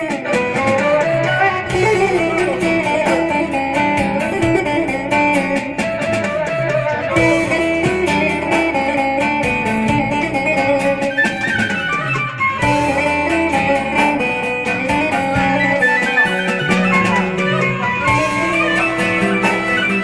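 Instrumental section of a Turkish song, a melody line over accompaniment, with no singing.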